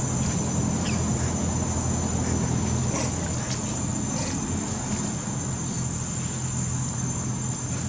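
Insects droning steadily at a high pitch, over a low steady hum.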